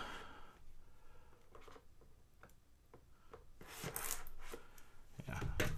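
Leatherman knife blade scraping and slicing through the tape on a cardboard box, with small handling clicks; the scraping, rustling sound comes about four seconds in and again, louder, near the end.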